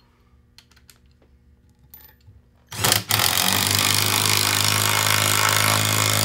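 Cordless impact driver with a socket driving a lag bolt through a wooden bracket into a wooden post. It starts suddenly about three seconds in and then runs steadily and loudly. Before that there are only a few faint handling clicks.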